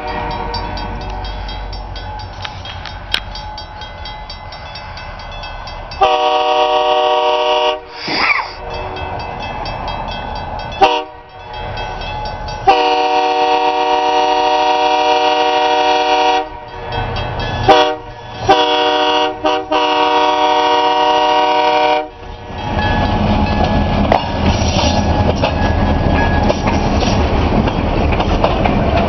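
Diesel locomotive multi-chime air horn sounding for a grade crossing as the train approaches: several long blasts with short ones near the end. After that, cab-unit diesel locomotives pass close by with a loud engine rumble and wheel noise.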